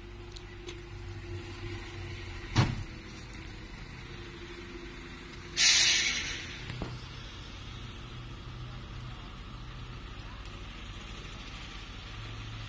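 Vehicle engines idling with a steady low hum, broken by a sharp knock about two and a half seconds in and a loud burst of hissing air, about a second long, near the middle.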